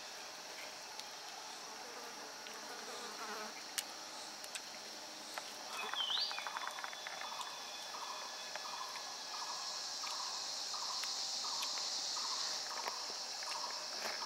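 Forest insects droning with a steady, high-pitched buzz that grows louder in the second half. About six seconds in there is a short rising whistle, and then a soft call repeats about twice a second.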